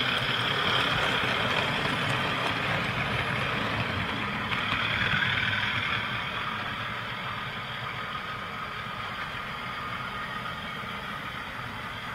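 Model trains running over the layout's track, a steady rumble of wheels and motors. It is loudest at first as a model diesel passes close by, and fades as the train pulls away.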